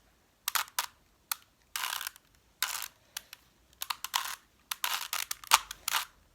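A plastic 3x3x3 Rubik's Cube being turned by hand through a solving algorithm: a quick series of short clicks and brief scraping clacks as the faces are twisted, bunching up near the end.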